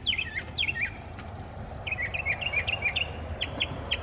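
Songbirds chirping: a few quick falling notes in the first second, then a busier run of chirps and, near the end, a steady series of short chirps about four a second, over a low steady outdoor rumble.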